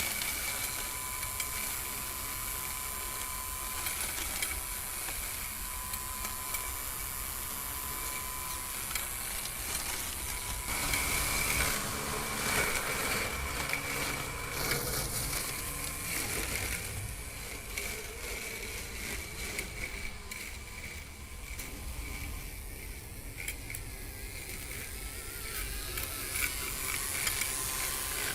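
DIY remote-control lawn mower running: its 775 brushed motors, salvaged from a cordless drill and held at 5 volts, spin the box-cutter blades with a steady electric whine over the whirring, clicking geared drive of the RC rock crawler chassis.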